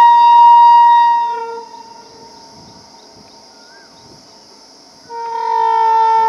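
WAG-9 electric locomotive's air horn: one blast at the start that fades out after about a second and a half, then a second blast about five seconds in that is still sounding at the end.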